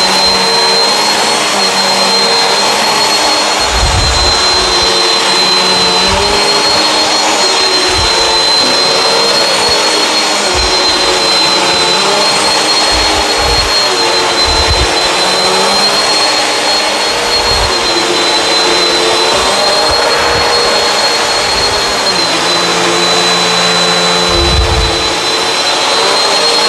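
Bissell CleanView Swivel upright vacuum running steadily on carpet, its motor whining high with the brush roll agitating the pile, the pitch wavering as it is pushed and pulled. Short low thumps come every couple of seconds as the machine is moved.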